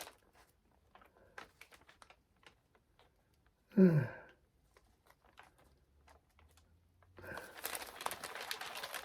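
Light, sparse typing on a computer keyboard, a few scattered key clicks, with a short murmured vocal sound about four seconds in and a stretch of faint rustling near the end.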